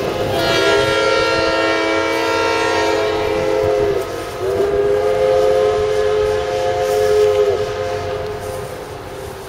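Steam locomotive's chime whistle sounding two long blasts, each a chord of several notes that slides in pitch as it starts and stops, the standard signal that the train is about to proceed.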